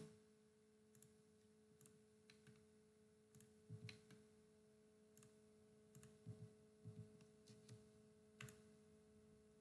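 Near silence: a faint steady hum with a scattering of faint, short computer-mouse clicks.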